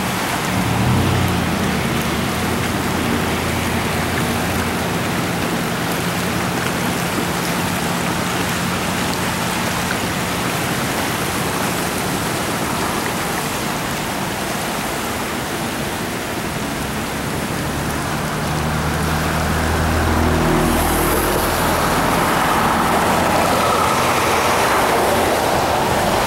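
Steady rush of a swollen creek in flood carrying ice floes and debris. Under it runs the low hum of road traffic, which swells about eighteen seconds in.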